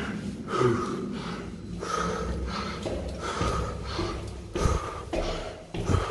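A man breathing hard and fast from the exertion of climbing many flights of stairs, a breath about every two-thirds of a second, with footfalls on the stair treads.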